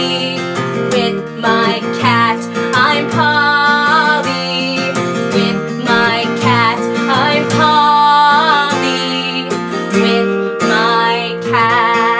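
Acoustic guitar strummed in chords while a woman sings long held notes with vibrato over it.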